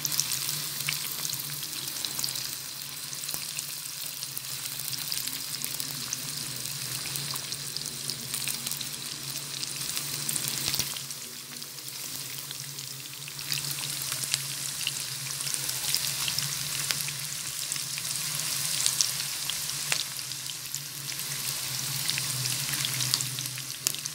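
Sliced onions sizzling and crackling in hot oil in a pan, stirred now and then with a silicone spatula, as they shallow-fry until lightly cooked. A steady low hum runs underneath the crackle.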